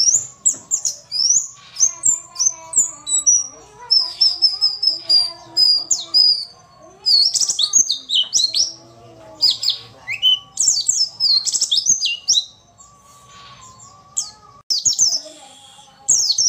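Female white-eye (pleci) singing: rapid, high-pitched chirping twitters and sweeping trills in quick bursts, with a short lull about two-thirds of the way through. It is used as a lure song to set male white-eyes singing.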